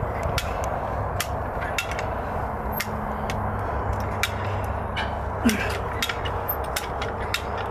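Calf puller's ratchet and chain clicking metallically as the jack is worked to draw a calf from a cow, irregular sharp clicks about two a second over a steady low rumble.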